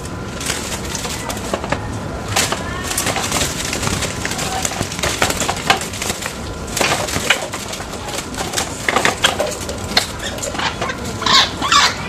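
A white-breasted waterhen flapping and scrambling inside a wooden bird cage as it is caught by hand, with irregular knocks and rattles from the cage. Short calls come near the end.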